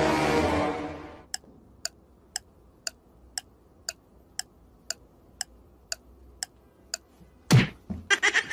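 Steady clock-like ticking, about two sharp ticks a second, over a quiet background. A loud, drawn-out pitched cry comes before it in the first second, and a single thump comes near the end.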